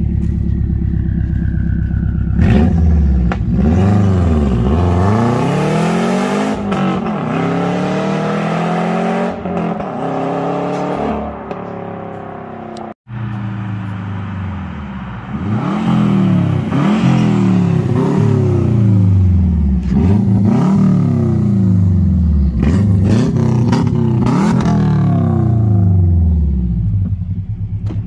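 Subaru Forester 2.5 XT's turbocharged flat-four boxer engine, with the rear silencer removed, heard through its open exhaust. It idles briefly, then is revved up and let fall back again and again. After a short break about halfway through, more runs of rising and falling engine speed follow.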